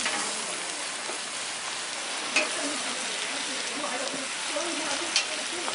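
Food frying on a hot cooking surface, a steady sizzling hiss. Two sharp clicks, one about two and a half seconds in and the louder one near the end.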